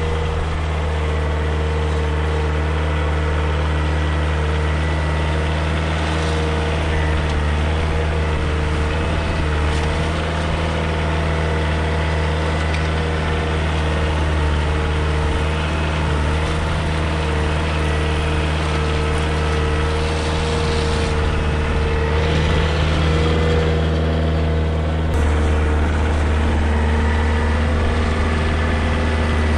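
Kioti DK40SE compact tractor's diesel engine running steadily as the tractor maneuvers with its front-loader grapple; the engine note shifts a little near the end.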